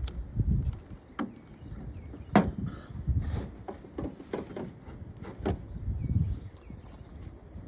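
Hand tools and trimmer parts being handled while the trimmer's shaft screws are checked and tightened: scattered sharp clicks and knocks, the loudest about two and a half seconds in, over a low rumble.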